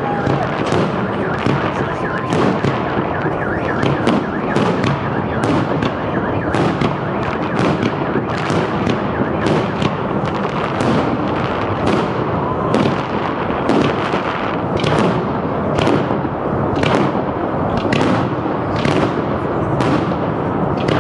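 Fireworks display: aerial shells bursting in quick succession, one or two bangs a second, over a continuous dense rumble that never lets up.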